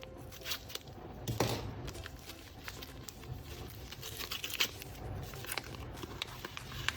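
Paper rustling and crinkling with scattered light taps and clicks, as paper pieces are handled and unfolded.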